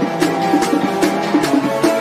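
Background music with a quick, steady percussive beat over sustained pitched notes.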